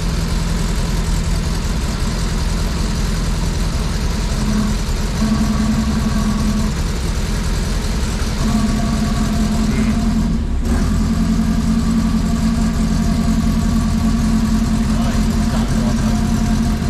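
Turbocharged Ford Zetec four-cylinder engine in a Mk1 Fiesta idling steadily, with a brief dip just past ten seconds in.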